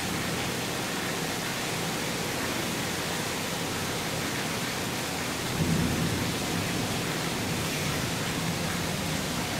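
Torrential rain pouring down in a steady, dense hiss, with a brief low swell about halfway through.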